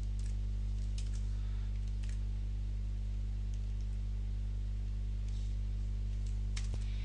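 Steady low mains hum, with a few scattered faint clicks from a computer keyboard and mouse.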